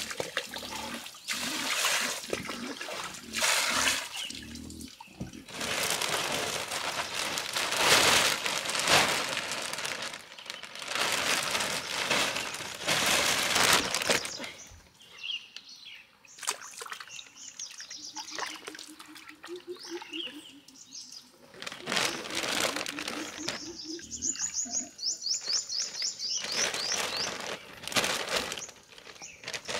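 Plastic sheeting crinkling and water splashing while live fish are lifted from basins of water and packed into a plastic-lined woven basket. In the quieter second half a bird sings a repeated high chirping trill.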